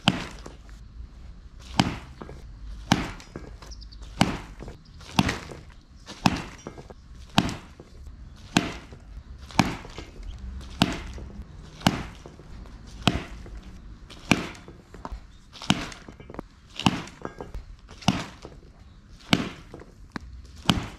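Baseball bat hitting balls one after another in a rapid-fire batting drill, a sharp crack of contact about once a second, each ball driven into a practice net.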